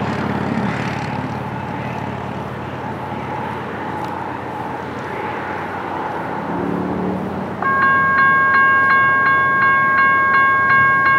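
Distant rumble of an approaching diesel freight train. About seven and a half seconds in, a railroad grade-crossing warning bell starts ringing loud and close, about two strikes a second, signalling that the crossing has activated for the oncoming train.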